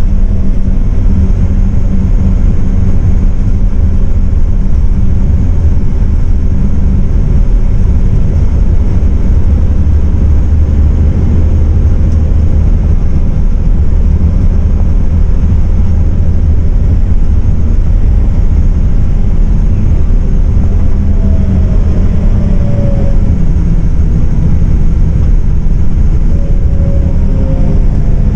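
Cabin noise of a MAN 18.350 bus at speed: steady diesel engine drone mixed with tyre and road rumble. A faint rising whine comes in twice in the second half.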